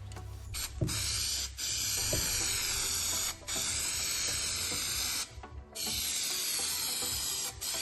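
Aerosol can of spray adhesive spraying onto a car's plastic pillar trim: a steady high hiss in several long bursts, with brief breaks and a half-second stop a little past the middle.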